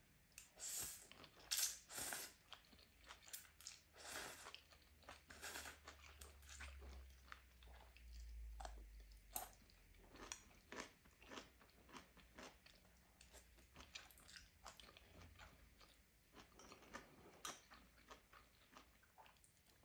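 Faint, irregular crunching and chewing of stir-fried spaghetti with crisp bean sprouts and vegetables, in a quick scatter of short crunches.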